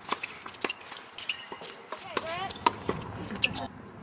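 Tennis balls being struck by rackets and bouncing on the court: a string of sharp, irregular pops. A brief squeak sweeps up and down in pitch about two seconds in.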